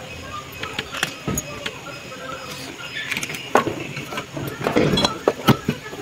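Metal clicks and clinks from a screwdriver working at a refrigerator compressor's terminals. From about three and a half seconds in come louder knocks and clatter as the compressor is gripped and handled for removal.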